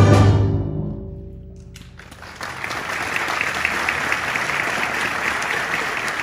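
Concert band's final chord, heavy in low brass, ringing out and fading away over about a second. After a short silence, audience applause starts about two seconds in and carries on.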